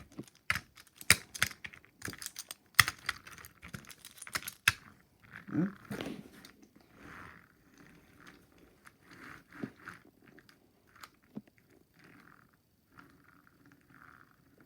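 Toy trains and track pieces being handled: a quick run of sharp clicks and knocks in the first five seconds, then fainter, shorter scraping and rubbing sounds.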